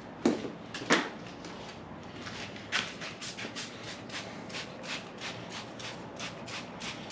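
Two knocks, then a hand trigger spray bottle of degreaser squirting over and over, about three short hissing sprays a second.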